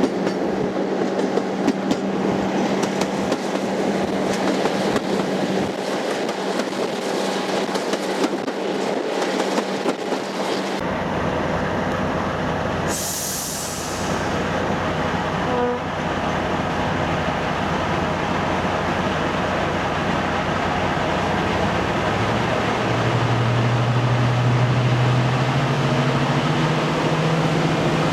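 Heritage diesel locomotive and its train running on the rails, with wheels clicking over rail joints. Partway through the sound changes, there is a brief high hiss, and later the diesel engine's note rises and grows louder as it powers up.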